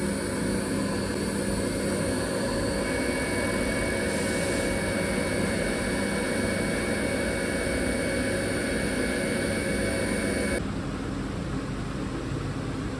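Fanuc Robocut wire EDM running while cutting blade profiles from M390 steel sheet: a steady machine hum with several held tones. About three-quarters of the way through, the higher tones cut out abruptly, leaving a lower, steady hum.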